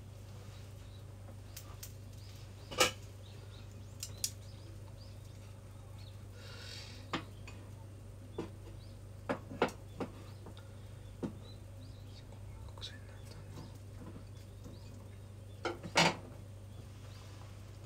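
Kitchen utensils clinking and knocking against dishes and pans: about a dozen scattered sharp clicks, the loudest about three seconds in and a double knock near the end, over a steady low hum.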